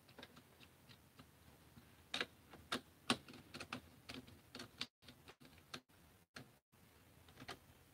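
Scattered light clicks and taps of a screwdriver and small Caliburn blaster parts being handled on a tabletop during assembly, the loudest a couple of seconds in. Past the middle the sound cuts out completely for several brief moments.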